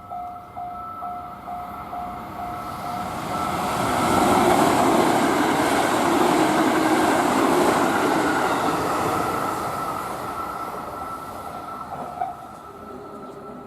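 A JR Tokaido Main Line train passes over a level crossing. Its noise rises from about three seconds in, is loudest in the middle and fades toward the end. At the start the crossing's warning bell rings about twice a second, and a steady tone carries on under the train until near the end.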